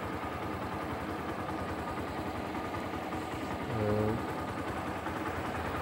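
An engine idling steadily, with a brief short vocal sound from a man about four seconds in.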